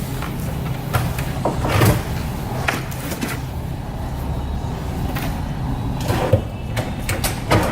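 Metal lateral file cabinet drawers being slid out and handled, with sliding rumbles and several sharp metal clunks and knocks.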